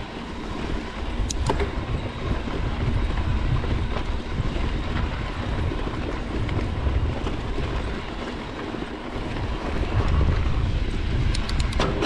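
Mountain bike rolling fast down a loose dirt-and-gravel road: steady tyre and frame rattle under heavy wind noise on the microphone, with a few sharp clicks about a second and a half in and again near the end.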